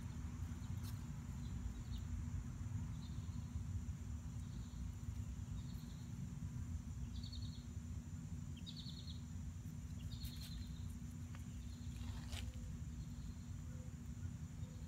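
Steady low outdoor background rumble, with a string of short, high chirps or squeaks about once a second, loudest in the middle, and a few faint clicks.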